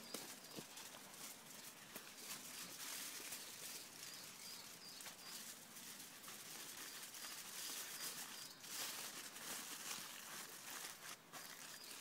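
Faint outdoor ambience with small, high, repeated chirps from a bird several times, over light scattered rustling and clicks.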